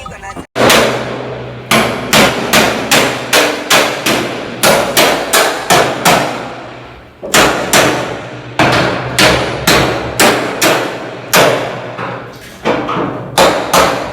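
Hammer blows struck over and over, two to three a second in runs with short pauses. Each blow is sharp and rings briefly.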